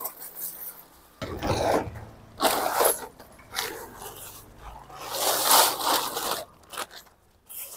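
Tent fabric and tarp rustling and crinkling in irregular bursts as the wet sheets are handled and draped over a rail to dry.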